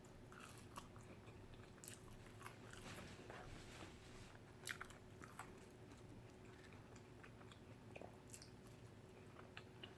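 Faint chewing and biting: a person eating, with scattered small crunches and mouth clicks.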